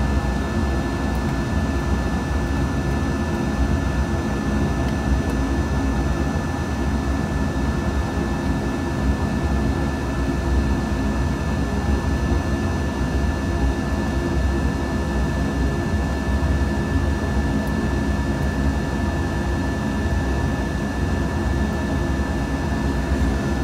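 Steady drone of a running fan, even and unbroken, with a faint constant high whine above it.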